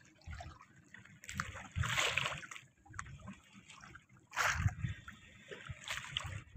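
Sea water sloshing and slapping against a small boat's hull, with two louder splashes about two seconds and four and a half seconds in.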